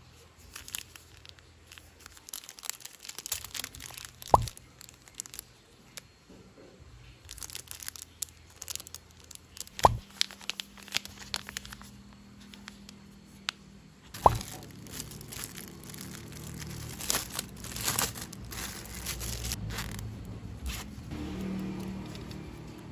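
Plastic packaging crinkling and rustling in clusters as small items are unwrapped and handled, with three sharp knocks spread through it.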